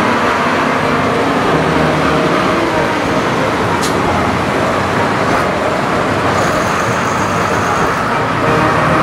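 Diesel tractor engines running steadily, over the murmur of a crowd.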